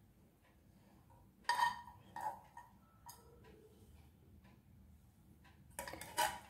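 A metal spoon clinking against a pan and a ceramic plate while filling is spooned out: two sharp knocks about one and a half and two seconds in, and a short flurry of clinks near the end, with faint room tone between.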